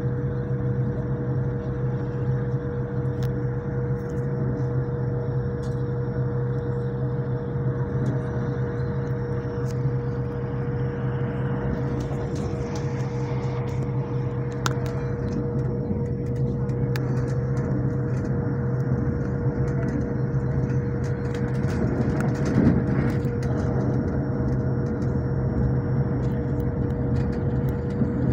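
Passenger train running, heard from inside the carriage: a steady drone and rumble with a constant low hum and a higher held tone, and faint clicks now and then.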